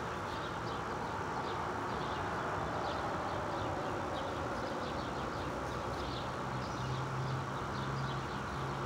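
Steady outdoor background noise with faint, quick high chirps throughout, and a low steady hum that comes in about six seconds in.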